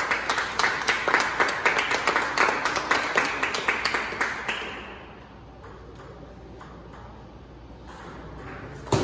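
Spectators clapping rapidly after a point for about four and a half seconds, fading out, then a quiet hall. Near the end comes one sharp tap of a table tennis ball struck on the serve.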